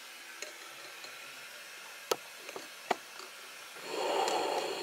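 Handling noise as the camera is moved and set down: two short knocks a little under a second apart, then a brief rubbing swish near the end.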